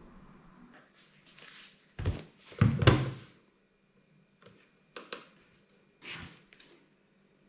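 Knocks and thuds of a digital kitchen scale and a folded fabric solar panel being handled and set down on a cutting mat on a table. The loudest cluster comes about two to three seconds in, with lighter knocks around five and six seconds in.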